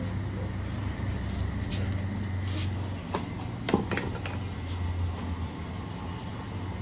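A few sharp clinks and knocks of ceramic flower pots being handled, the loudest a little past the middle, over a steady low hum.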